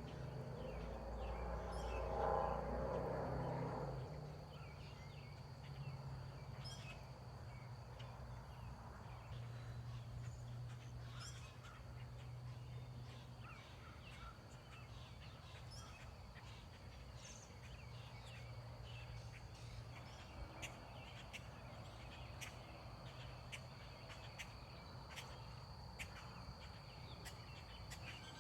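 Outdoor rural ambience: scattered short bird calls over a steady low hum and a thin, steady high tone, with a louder low rumble for roughly the first four seconds.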